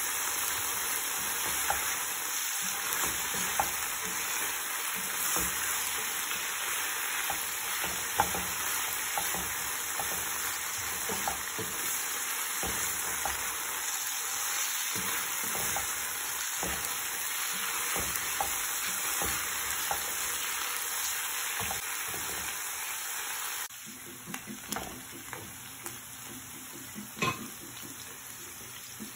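Tuna and boiled potato frying in oil in a coated frying pan, sizzling steadily while a metal spoon stirs and scrapes with many small clicks. Near the end the sizzle cuts off abruptly, leaving a few light knocks of the spoon on the pan.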